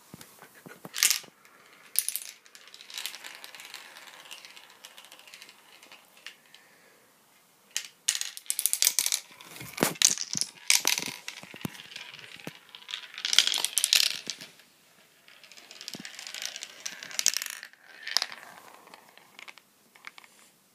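Marbles rolling and clattering through a plastic marble run, rattling along the chutes with sharp clicks as they drop between pieces, in several separate runs of clatter.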